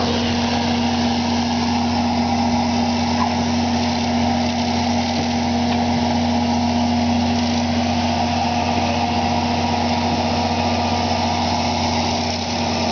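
An engine running steadily at a constant speed: an even drone with a fixed pitch.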